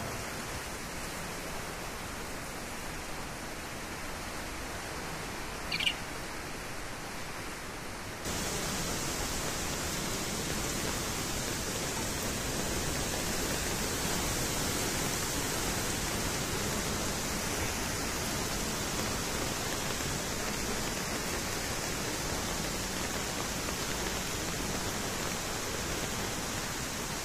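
Steady rush of a muddy floodwater torrent, stepping up suddenly and louder about eight seconds in. A brief high chirp sounds once, a little before the jump.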